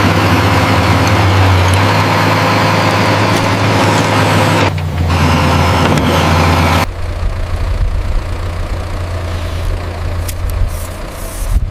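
Heavy construction machine engine running steadily with a low hum. About seven seconds in the sound changes abruptly to a quieter engine sound, which picks up again near the end.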